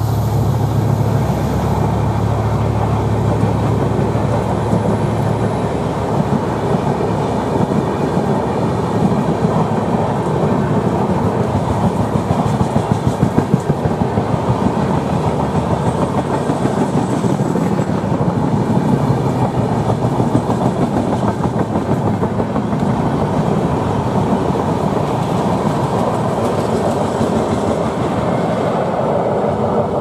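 A long train of Indian Railways passenger coaches rolling past, its wheels clattering steadily on the track. A low steady hum fades out about five seconds in.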